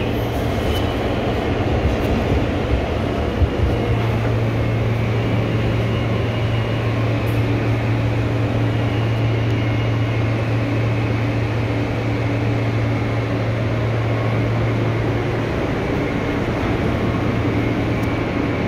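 Steady interior noise of an Alstom-built R160A New York subway car: a continuous low hum with a fainter higher tone joining a few seconds in.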